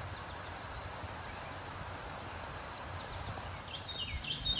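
Woodland ambience: a steady, high drone of insects, with a bird starting a fast series of short, repeated chirping notes near the end.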